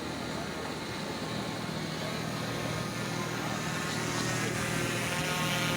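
An engine running steadily and growing louder.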